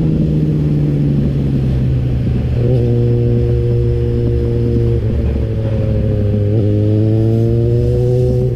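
Yamaha motorcycle engine running as it is ridden, with wind rumble on the microphone. The engine note sags over the first two seconds, steps up about two and a half seconds in, then dips briefly near six and a half seconds and climbs steadily toward the end as the rider accelerates.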